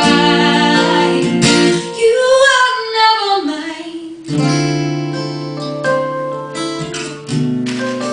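A woman singing a long, wavering note with guitar, the voice sliding and fading out about four seconds in. Then the guitar plays strummed chords on its own.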